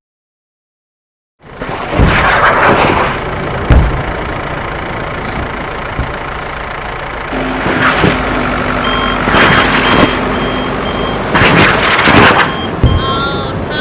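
Heavy construction vehicle engine running, with a reversing alarm beeping about twice a second in the second half. It starts after about a second and a half of silence.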